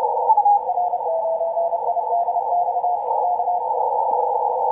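Morse code (CW) signal on the 15 m amateur band, heard through a Kenwood TS-890 transceiver's narrow CW filter: a mid-pitched tone keyed in dots and dashes over steady band hiss. The tone's pitch drops slightly in the first second as the receiver is tuned onto it, and the keying stops shortly before the end. It is a station calling CQ JA, looking for Asian contacts.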